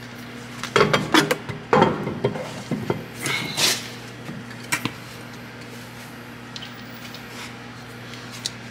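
Metal knocks and clinks of a car wheel and a socket tool being handled at the hub, in a few irregular clusters during the first half, then quieter, over a steady low hum.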